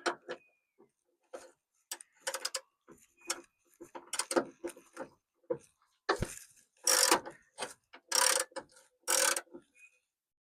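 Hand socket ratchet clicking in short, irregular strokes as a nut is worked off a bumper mounting bolt; from about six seconds in the strokes become longer and louder.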